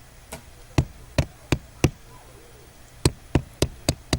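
A run of sharp knocks, a hard object tapped against something hard: five about a third of a second apart, a pause of about a second, then five more in quick succession.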